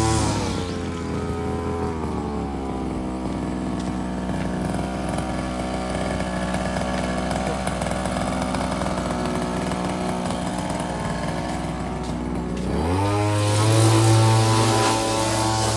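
Background music pitched down into a low, buzzing sustained drone: the pitch slides down at the start, holds, and slides back up near the end.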